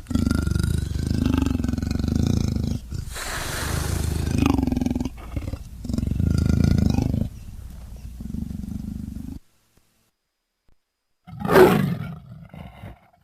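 Leopard calling: a run of rough, hoarse calls, each a second or two long with short pauses between, fading off after about nine seconds. After a gap of dead silence, one louder call falls in pitch and dies away near the end.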